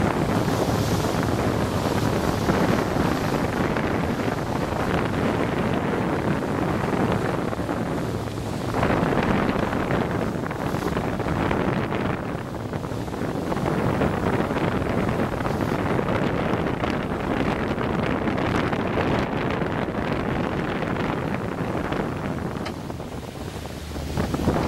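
Wind buffeting the camera's microphone, a steady rushing noise that swells and eases in gusts.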